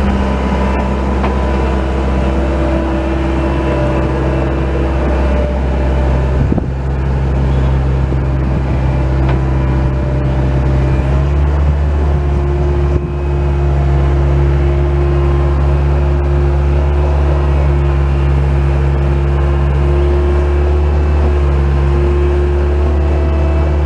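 Bobcat compact track loader's diesel engine running steadily, with a brief dip about six and a half seconds in and a slightly louder drone from about eleven seconds on.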